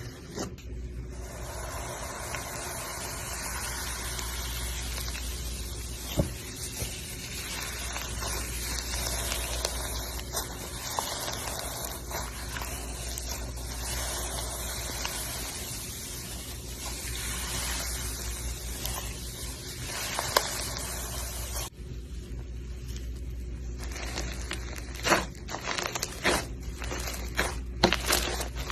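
Slime being worked by hand, squishing and crackling, with scattered small pops that come thicker near the end.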